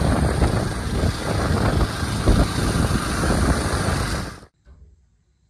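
Wind buffeting the camera's microphone on a moving motorcycle, a loud, steady rush with a rumbling low end. It cuts off suddenly about four and a half seconds in.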